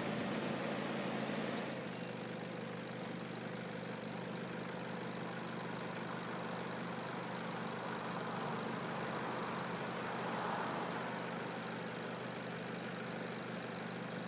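Nissan Patrol GU3 engine idling with a steady low hum while the vehicle stands still. A rush of wind on the microphone dies away about two seconds in as the vehicle comes to a stop.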